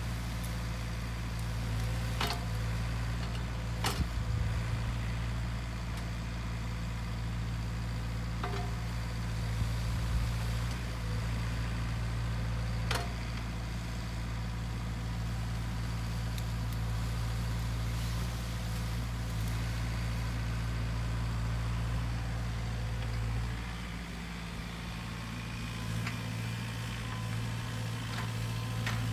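Sany SY50U mini excavator's diesel engine running steadily while it digs out stumps and saplings, with a few sharp knocks from the bucket working. The engine eases off for several seconds near the end, then picks up again.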